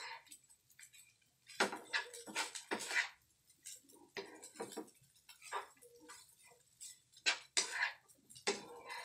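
Wooden spatula scraping and tossing fried rice in a frying pan: irregular scrapes and light knocks against the pan, one after another with short gaps.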